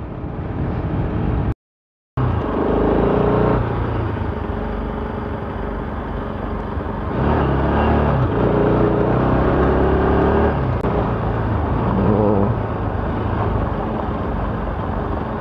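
Bajaj Pulsar RS200 motorcycle's single-cylinder engine running under way, its note rising and falling a few times with the throttle. The sound drops out completely for about half a second about one and a half seconds in.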